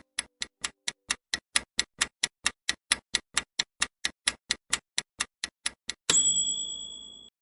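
Countdown-timer sound effect: a clock ticking evenly, about four ticks a second, for around six seconds. A bright chime rings once and fades, marking that the answer time is up.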